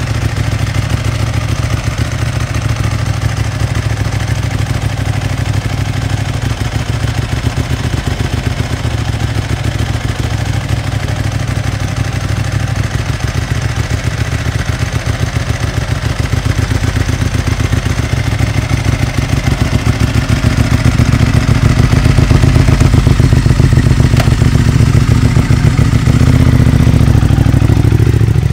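A Vyrus motorcycle's Ducati L-twin engine idling with a steady, pulsing beat. It grows louder about two-thirds of the way in, then revs up as the bike pulls away near the end.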